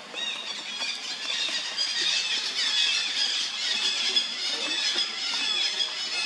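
Baby monkey squealing: a rapid, continuous run of short, high-pitched squeals.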